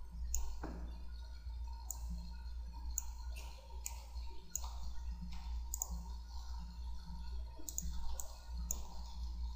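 Computer mouse clicking irregularly, about a dozen sharp clicks a second or so apart, over a steady low electrical hum.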